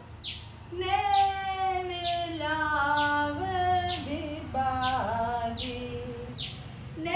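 A woman singing a Sinhala drama song in long held notes that step and slide in pitch. A bird gives a short falling chirp over and over, a little more than once a second.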